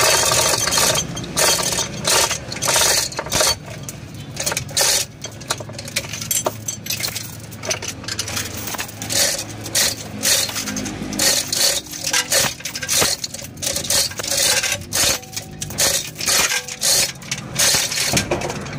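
Manual chain hoist being worked by hand, its steel chain rattling and clinking in quick, irregular runs through the block as a car engine is lowered out of the engine bay.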